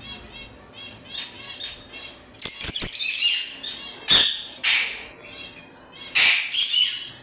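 Yellow Fischer's lovebirds calling: first a quick run of small repeated chirps, then loud harsh screeches from about two and a half seconds in, several times over. A few sharp knocks come with the first screeches.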